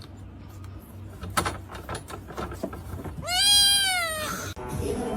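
A cat meowing: one long, drawn-out meow that rises and falls in pitch, about three seconds in. Light knocks and rustling come before it.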